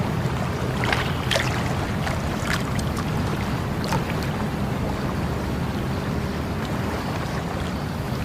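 Water flowing steadily with a low rushing sound, with a few brief splashes or gurgles in the first four seconds.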